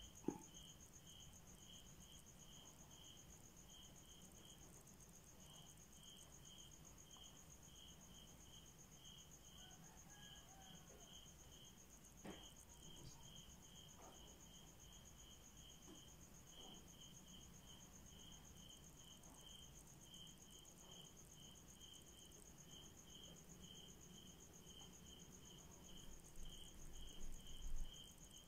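Crickets chirping faintly: an even pulsed chirp about two to three times a second over a continuous higher trill. A few soft bumps near the end.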